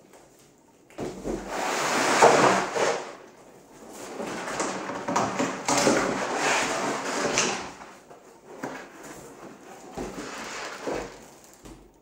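Cardboard box and plastic-wrapped packing being scraped and rustled in uneven bursts as a vacuum cleaner's pulp packing insert is slid out of its box. It is loudest in the first few seconds and quieter near the end.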